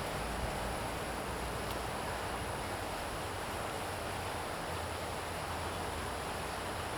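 Steady outdoor background noise: an even rushing hiss with a low rumble underneath and a faint, thin, high steady tone.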